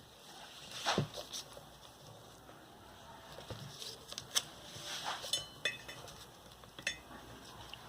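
Scattered small clicks, taps and rustles of hands handling the parts of a ceiling fan motor, irregular and fairly faint, the sharpest click about a second in.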